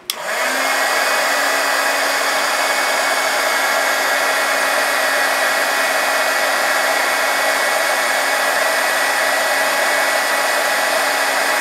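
Handheld electric blow dryer running on its steady setting, a whooshing rush of air over a constant motor hum and a faint whine, switched on right at the start. It is drying a freshly painted, still-wet watercolour strip.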